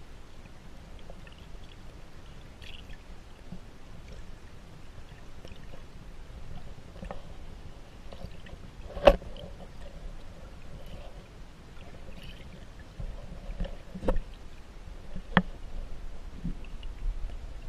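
Underwater recording: a low, muffled wash of water with a few faint clicks and some sharp knocks. The loudest knock comes about halfway through, and two more follow a few seconds later.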